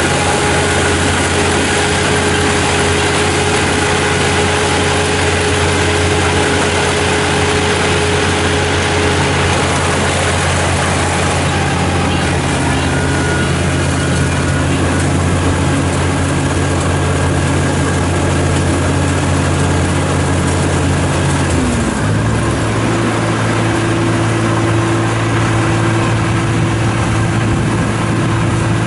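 Kubota ER447 combine harvester's diesel engine running steadily under work, a loud continuous drone. About three quarters of the way in, its note shifts with a short downward glide and then settles on a new steady tone.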